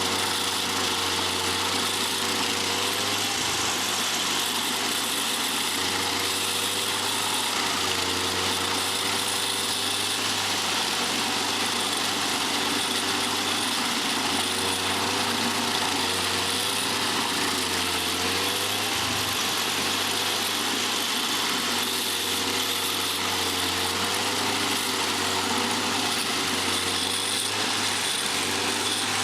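Stump grinder's small petrol engine running steadily under way, its note wavering slightly up and down every second or two, with a steady hiss over it.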